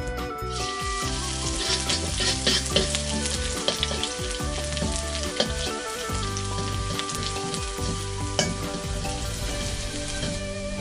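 Minced garlic frying in hot oil in a wok: a sizzle starts about half a second in and carries on, with the ladle clicking and scraping against the pan as it stirs. Soft background music plays underneath.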